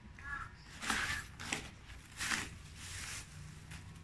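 Plastic wrapping and cardboard packaging rustling and crinkling in a handful of short bursts as a digital scale is lifted out of its box. A bird calls once faintly at the very start.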